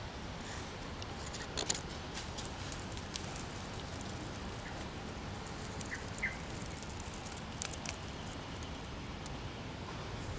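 Steady outdoor background hiss with scattered light crackles and ticks of dry twigs and leaves rustling, and a few short faint chirps near the middle.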